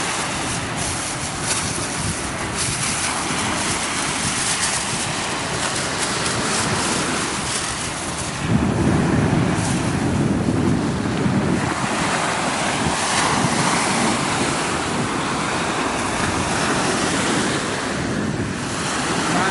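Ocean surf washing onto the beach, with wind blowing on the microphone; a deeper, louder stretch of rushing comes about eight seconds in and lasts a few seconds.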